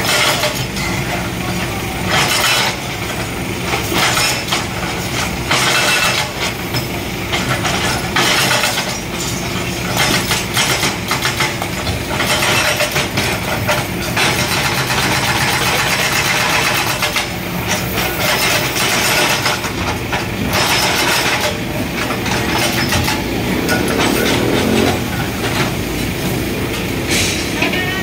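LiuGong 915E hydraulic excavator's diesel engine running steadily, with repeated short bursts of harsh noise over it every second or two.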